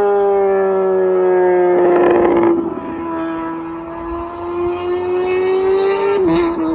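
Motorcycle engine running at high, nearly steady revs, its pitch drifting slowly down and back up. It dips briefly near the end.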